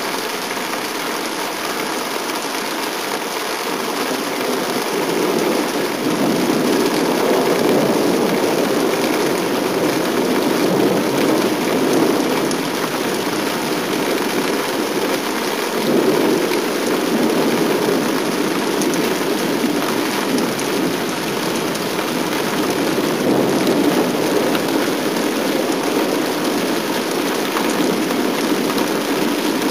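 Thunderstorm: steady rain with rolling thunder rumbling in long, slow swells several times, with no sharp cracks.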